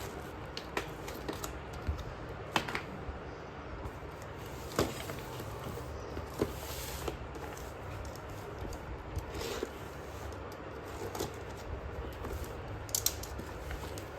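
Slate pencils crunching: scattered sharp, crisp snaps, about one every second or two, over a steady low hum.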